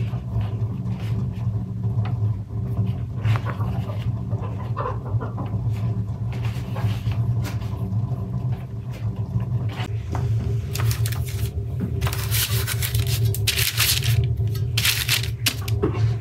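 Hands folding and handling khachapuri dough on a wooden board, with soft scrapes and taps. From about ten seconds in, baking paper crinkles loudly in a round baking tray as the pastries are placed in it. A steady low hum runs underneath.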